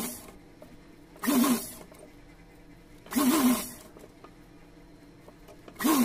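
Sewing machine stitching in short bursts, about four of them, each under a second long, with a pitch that rises and falls in each run as the fabric is fed through a little at a time.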